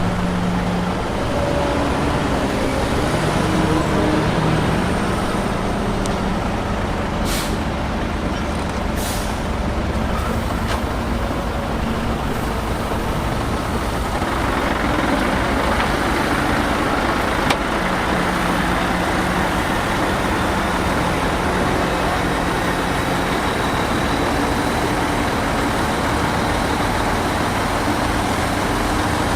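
Heavy diesel construction machinery running steadily. There are two short, sharp hisses about seven and nine seconds in, and the engine sound grows harsher about halfway through.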